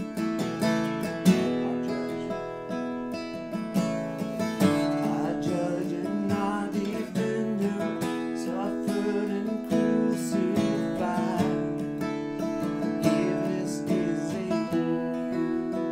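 Acoustic guitar strummed steadily under singing of a worship song.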